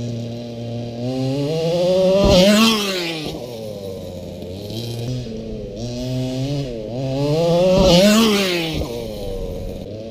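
Electric motor and drivetrain of a radio-controlled crawler truck, a red Axial SCX10 Jeep, whining as it is throttled up and back down twice. The pitch climbs to a peak about two and a half seconds in and again about eight seconds in, falling away after each.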